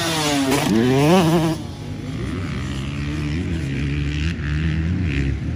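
Dirt bike engine revving hard close by, its pitch sweeping up and down over a jump. About a second and a half in it drops to a quieter, steadier engine note with small rises and falls in speed, as a bike rides around the track farther off.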